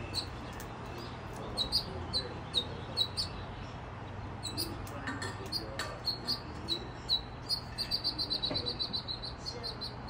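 Small songbirds chirping: short, high chirps every half second or so, breaking into a quick run of rapid chirps near the end.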